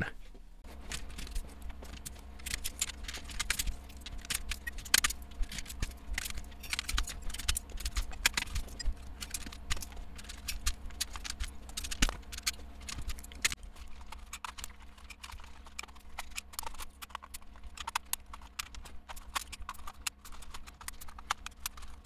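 Plastic keycaps being pried off a Keytronic foam-and-foil keyboard one after another: a long run of irregular clicks and clacks over a low steady hum.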